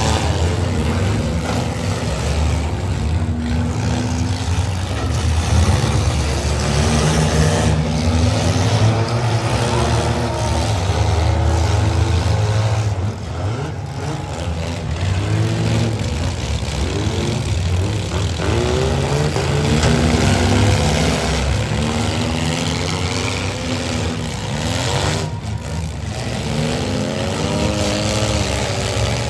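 Several compact demolition-derby cars' engines running at once, revving up and down in overlapping rises and falls over a deep rumble as the cars manoeuvre and ram each other.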